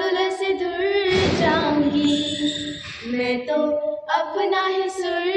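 Two teenage girls singing a Hindi song together, unaccompanied, holding long drawn-out notes.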